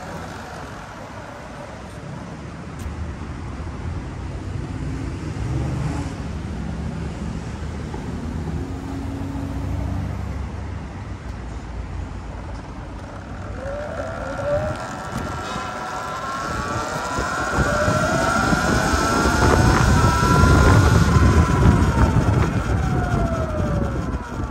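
Low street-traffic rumble while the Sur-Ron electric bike stands at the crossing. About halfway through, the bike's electric motor whine climbs in pitch as it pulls away and speeds up, with wind and tyre noise growing beneath it. Near the end the whine falls back as the bike slows.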